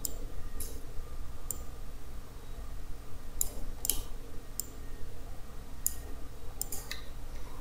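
Computer mouse button clicks, about ten short sharp clicks at irregular spacing, some in quick pairs, as objects are selected and dragged.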